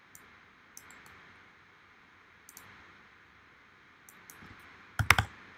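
Sparse faint clicks of a computer mouse over a low, steady hiss, with a louder quick run of three or four clicks near the end.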